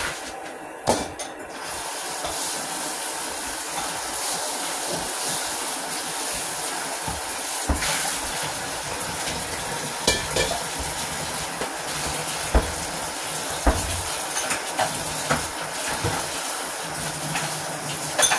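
Steady hiss and sizzle of cooking oil heating in a wok on the stove, with scattered clicks and knocks of kitchen utensils. The hiss sets in about two seconds in.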